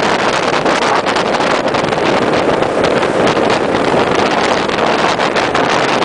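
Wind buffeting the microphone together with road and engine noise from a vehicle driving along at road speed: a loud, steady rush with frequent small crackles.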